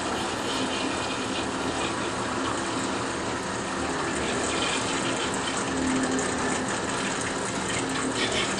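Distek VIP 4400 dissolution vessel washer's wash nozzle spraying water around the inside of a glass dissolution vessel during a wash cycle. It makes a steady rush of water with a low hum running underneath.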